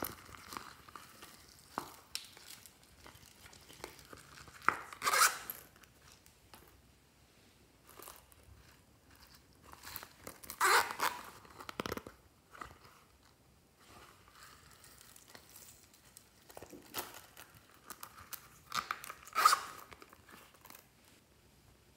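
Zippered silicone pencil cases being handled: three short rasping zipper pulls, with small clicks and rustling between as the cases are squeezed and sprinkles shaken out.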